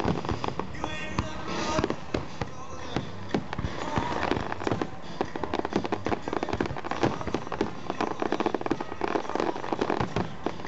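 Aerial fireworks shells bursting overhead: dense, rapid crackling and popping, with louder bangs among them.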